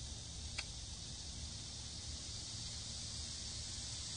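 Steady high-pitched insect chorus with a low rumble underneath, and a single sharp click about half a second in.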